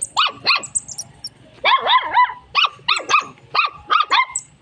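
Small dog yapping: two short, high-pitched yaps, a pause of about a second, then a fast run of yaps at two to three a second.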